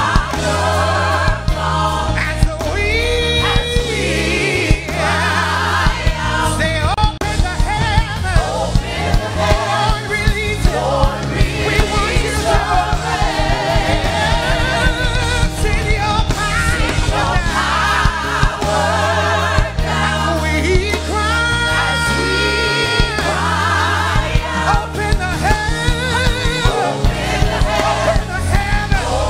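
Gospel worship music: a choir and singers, with some long held notes, over a band with bass and a steady drum beat.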